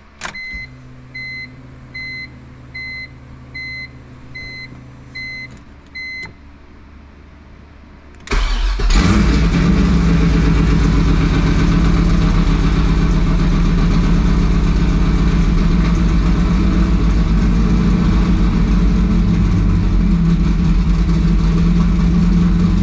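An electric fuel pump hums for about five seconds while a dashboard chime beeps about every 0.7 s. About eight seconds in, the swapped-in 6.2-litre LS V8 fires at once and settles into a steady idle.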